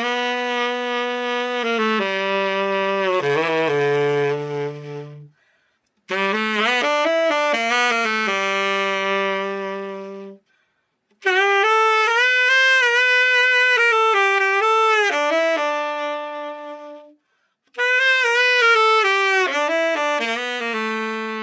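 Yanagisawa T-WO10 tenor saxophone played solo after a full setup, in four short melodic phrases separated by brief pauses. Several phrases end on a held low note.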